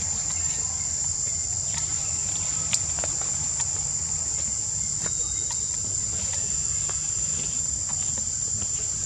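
Insects droning in forest: one steady, unbroken high-pitched whine over a low rumble of background noise, with a single sharp click about three seconds in.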